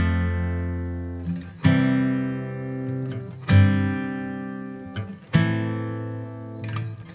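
Background music: a guitar chord strummed about every two seconds, four times, each left to ring out and fade.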